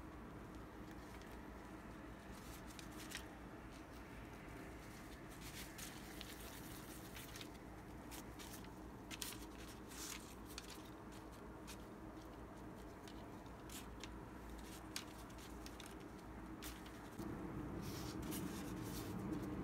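Faint rustling and light taps as gloved hands press crumb-coated dough balls and handle parchment paper, over a low steady hum. The rustling grows louder near the end.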